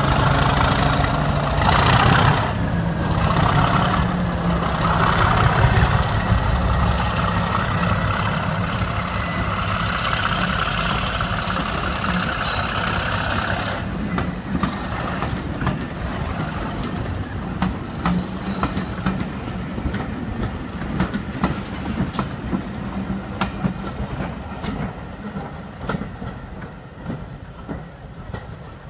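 English Electric Class 37 diesel locomotive's V12 engine under load, working hard with thrash as it pulls its train away, a high whistle above the engine note. About halfway through the engine fades and the coaches roll past, wheels clicking over the rail joints, dying away as the train draws off.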